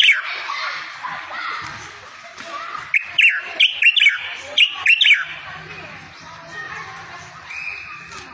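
Songbird song: quick runs of sharp, high chirps, one right at the start and a longer string of about eight notes in the middle, over a steady background twitter. A low hum joins in past the halfway point.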